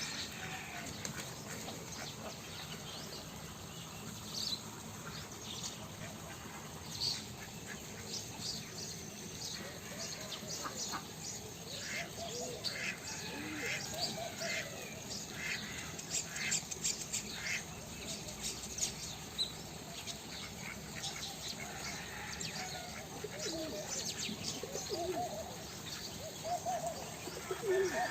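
A crowd of farm birds calling: many short, high chirps, denser in the second half, with lower cooing calls of doves in among them.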